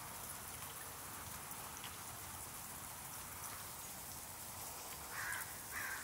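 Backyard water fountain splashing, a steady patter of falling droplets. Near the end, two short calls stand out above the water.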